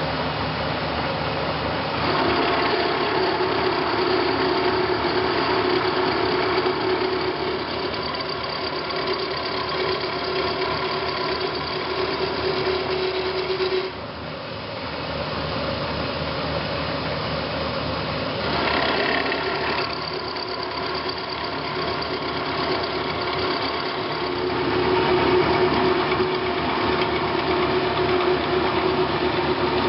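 CNC milling machine running and cutting, with the spindle and cutter making a steady mechanical whir. A steady hum in the sound starts about two seconds in, cuts out about halfway through and comes back near the end.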